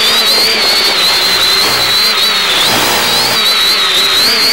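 X550AIOP quadcopter's electric motors and propellers whining steadily in flight, several high tones wavering up and down together as the throttle shifts, over a hiss.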